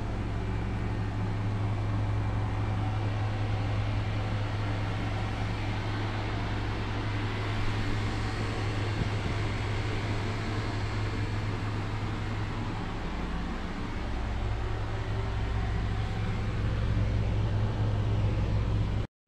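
An engine running steadily under travel, a constant low hum under an even rushing noise. The sound cuts out for an instant near the end.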